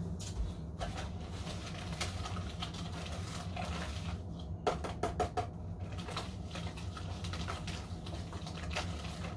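Hand whisk mixing butter, sugar and salt in a plastic bowl: irregular light clicks and scrapes of the wires against the bowl, a little louder midway, over a low steady hum.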